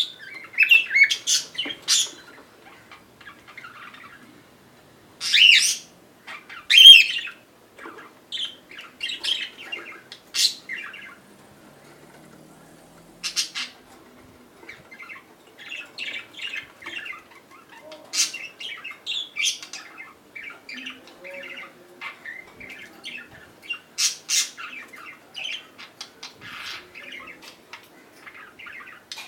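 Cockatiel chirping and chattering in short bursts, with two loud harsh squawks about five and seven seconds in.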